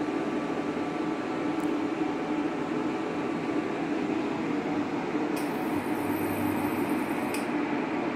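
Steady whirring hum of a running fan, with a faint high-pitched whine that starts a little past the middle and stops about two seconds later.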